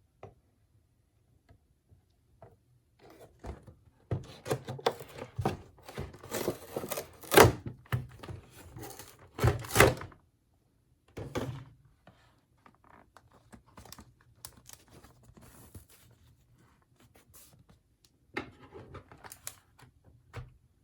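Toy packaging being handled and opened by hand: irregular rustling, scraping and knocks, with two loud thunks about seven and ten seconds in.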